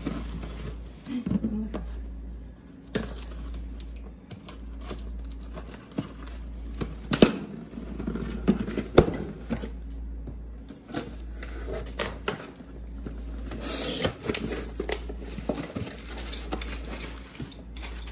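A kitchen knife slitting the packing tape on a cardboard box, then the cardboard flaps being pulled open and plastic wrapping crinkling. Scattered sharp clicks and knocks run through it, the loudest about seven and nine seconds in.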